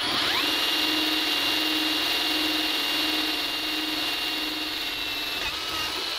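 Milwaukee M18 FUEL brushless cordless drill spinning up with a quick rising whine, then running at a steady pitch as its high-speed-steel bit drills into thick steel plate. The pitch drops near the end as the drill begins to slow.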